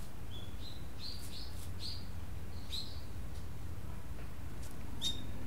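Small bird chirping: a quick run of short, high chirps in the first few seconds, then a single chirp near the end, over a steady low rumble.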